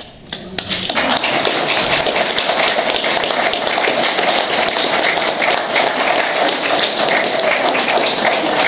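Guests applauding: a few first claps, then steady applause from many hands from about a second in.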